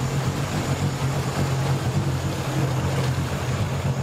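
Sea-Doo jet-drive watercraft engines running slowly near the dock: a steady low drone over the wash of water.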